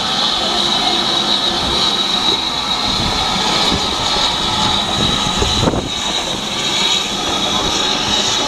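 BR Standard Class 4 tank steam locomotive moving slowly past close by, with a loud steady hiss of escaping steam over the low rumble of the engine and its wheels.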